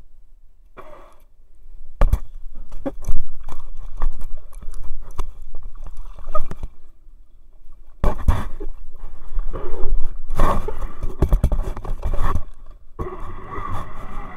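Water sloshing and splashing against a jet surfboard at the waterline, with many irregular knocks and bumps on the board and its camera housing. A steady hum with a few fixed pitches begins near the end.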